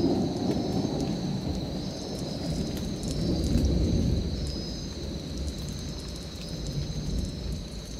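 Low rolling thunder rumbling, swelling about halfway through and then fading away, over a thin steady high tone with faint chirps.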